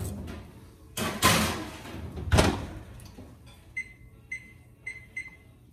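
An oven door opening and a pan going in with a clatter, then the door shutting with a heavy thud about two and a half seconds in. About four short, high electronic keypad beeps follow as a timer is set.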